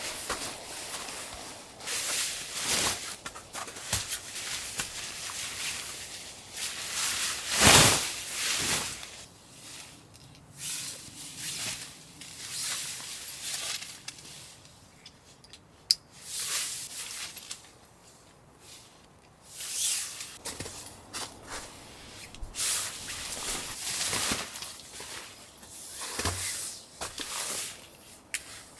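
Tent fabric rustling and flapping as the inner tent is hung and its door panel handled, in irregular bursts with one louder burst about eight seconds in; footsteps in snow between them.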